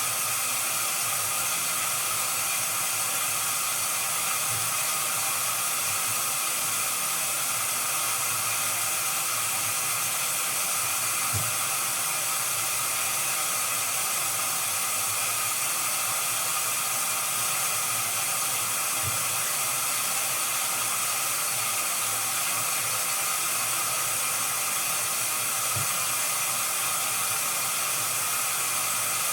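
Washing machine running: a steady rushing hiss, with a few soft low knocks from the drum now and then.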